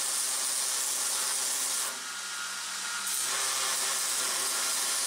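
Backstand belt grinder running, with a knife handle being profiled against its small contact wheel: a steady grinding hiss over the motor's hum. The grinding eases for about a second around two seconds in, then picks up again.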